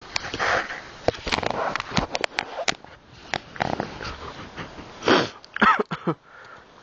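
Camera handling noise: rustling and scraping with a run of sharp clicks and knocks on the microphone, and a short pitched squeak near the end. No engine is running.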